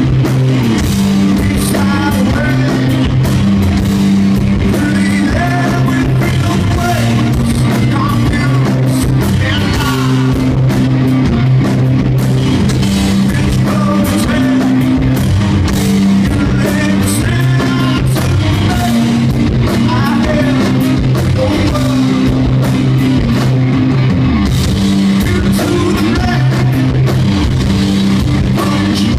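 A live rock band playing loud: electric guitar, bass guitar and drums on a repeating low riff, with a singer's voice on top.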